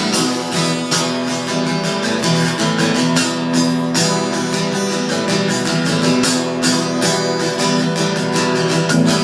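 Instrumental break in a worship song: guitar strumming chords with a steady beat.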